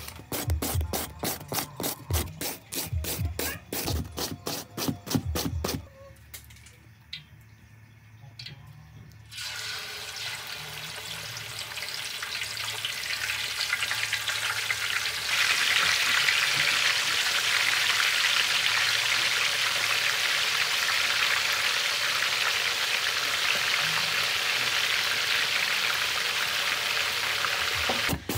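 Potato being shredded on a plastic julienne grater, quick scraping strokes at about three a second, for the first six seconds. After a short lull, chicken feet sizzle as they deep-fry in a wok of hot oil: a steady hiss that grows louder about fifteen seconds in and stays loud.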